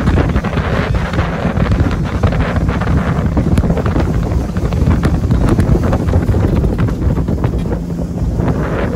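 Strong wind buffeting the microphone: a loud, steady low rumble with scattered crackles.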